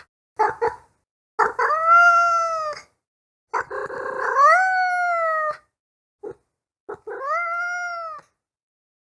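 A cat meowing: a couple of short chirping calls, then three long drawn-out meows, the second rising in pitch partway through.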